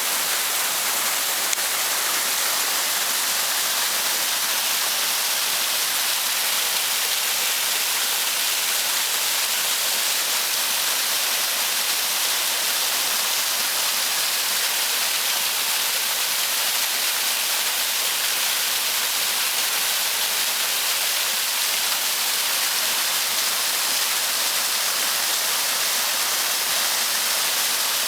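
Waterfall: water pouring and splashing in a steady, even rush with a hissy, high-sounding character.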